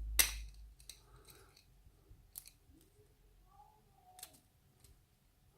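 Small metal clicks from a pin-tumbler lock cylinder and its key as a shim is worked in to slide out the plug: one sharp click just after the start, then a few faint scattered clicks.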